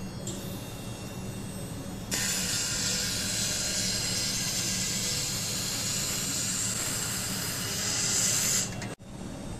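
1000 W handheld fiber laser welder hissing as it welds a seam on a 304 stainless steel box. A faint high hiss starts just after the beginning, and the full loud, even welding hiss comes in about two seconds in and cuts off suddenly near the end. A steady low hum runs underneath.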